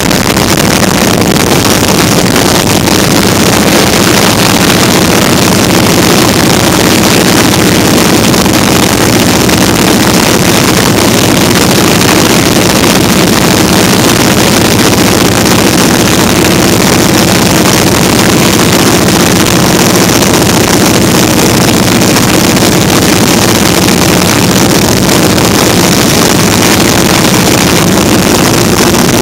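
Vintage open-cockpit biplane's engine and propeller running steadily in cruising flight, a loud, even drone. Heavy wind rush over the microphone from the open cockpit's slipstream is mixed in.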